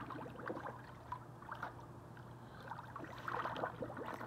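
Water splashing and sloshing as a person swims through a hot tub, in irregular bursts that are busiest near the end. A steady low hum runs underneath.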